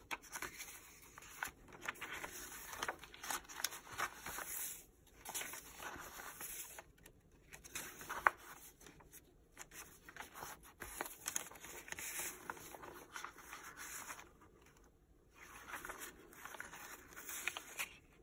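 Paper rustling as the pages, folded booklet and tags of a handmade junk journal are handled and turned: soft crackles and flaps on and off, with a few brief pauses.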